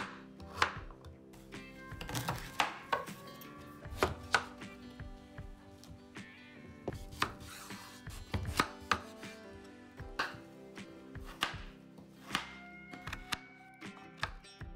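Kitchen knife chopping vegetables on a wooden cutting board: a run of irregular, sharp knife strikes as carrot is sliced into rounds and pumpkin is cut into cubes.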